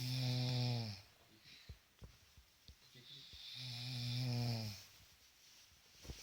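A sleeping person snoring: one snore ends about a second in and another, longer one comes about two seconds later. Each is a low, steady-pitched drone with a breathy hiss.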